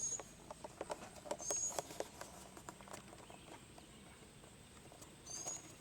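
Scattered light clicks and taps, with three short high chirps: one near the start, one about a second and a half in, and one near the end.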